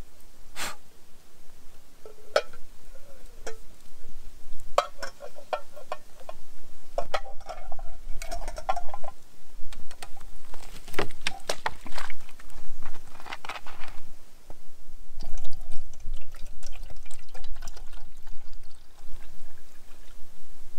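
Metal camp cookware clinking and knocking as a small kettle and pot are handled on a camp stove, with water being poured into a pot.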